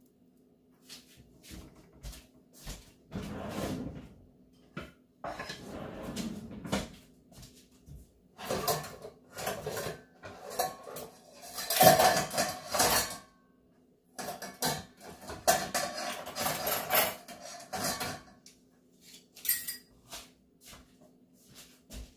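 A kitchen utensil scraping and knocking against a pot and containers as thick halaya is scooped out, in irregular bursts of clinks and scrapes. The sound is loudest around the middle, with short pauses between bursts.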